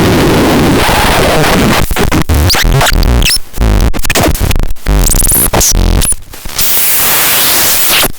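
VRTLOCH noise synthesizer playing harsh, loud noise: a steady wash at first, then from about two seconds in chopped into stuttering bursts with sweeping high whistles and low thuds.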